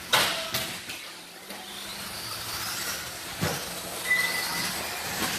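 Electric Team Associated 2WD RC buggies running on an indoor clay track: motor and tyre noise, with a loud sharp knock at the very start and another past the middle. A steady high whine comes in about four seconds in and lasts about a second.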